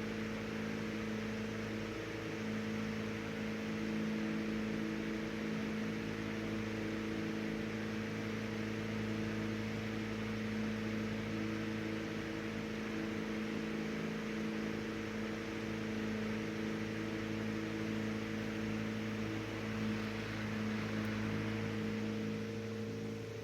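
Emerson 12-inch brass-blade table fan, model 29646, running steadily: an even motor hum under a steady rush of air from the blades.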